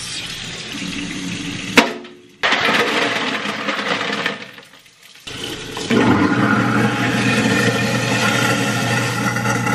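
Water running hard from a kitchen faucet's pull-down sprayer into the sink, with a sharp knock about two seconds in and a short lull around the middle while a carton of spoiled milk is emptied into the sink. The water runs again over the last few seconds, with a steady hum in it.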